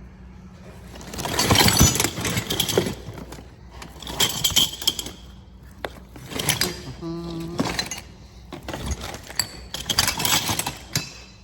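Garage-door hardware being handled and sorted: repeated bursts of rattling and clinking, each lasting a second or two, with sharp clicks between.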